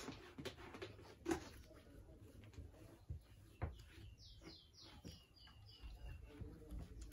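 Light knocks and taps as things on a shelf are handled and wiped with a cloth, the loudest about a second in. Around the middle a bird chirps a quick run of about six short, falling notes.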